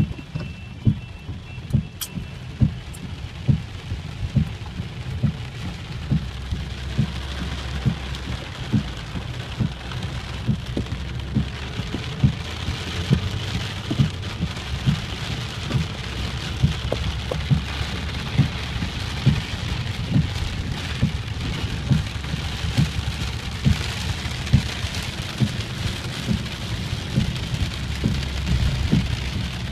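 Heavy rain falling and pattering on surfaces close to the microphone, with frequent dull thuds of large drops, about one or two a second. The rain grows heavier after about seven seconds, under a steady low rumble.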